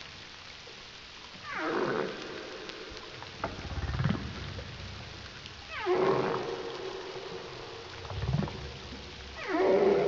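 Humpback whale song recorded underwater: a phrase that repeats about every four seconds, in which a call sweeps down from high to low and settles into a held tone, then a shorter low moan follows.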